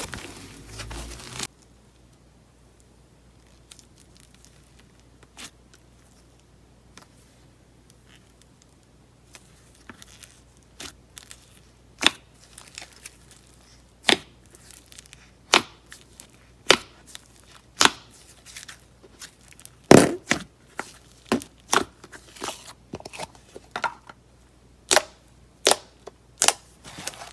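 Slime mixed with clay being handled: a brief crinkly, tearing stretch at the start, then after a quiet spell a series of short sharp pops, roughly one a second.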